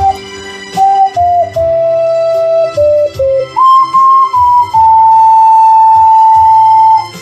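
Ocarina playing a slow melody over a low accompaniment: a short run of falling notes, then a jump up about halfway through to a long held note that ends shortly before the close.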